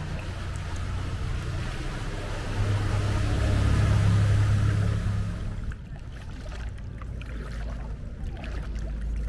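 Small motorboat's engine running close by, a low steady hum under a bridge arch that swells about three to five seconds in and falls away after about six seconds.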